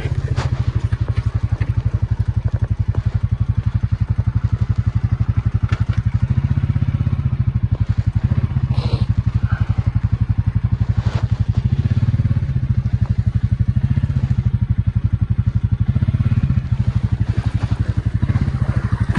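ATV engine running at low speed with an even chugging pulse, swelling gently several times as the throttle is eased on and off. A few light knocks come through about halfway.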